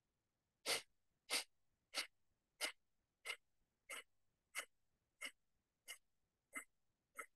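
Kapalbhati breathing: a woman's short, forceful exhalations through the nose, pumped by the abdomen, one about every two-thirds of a second, eleven in all, the first coming under a second in.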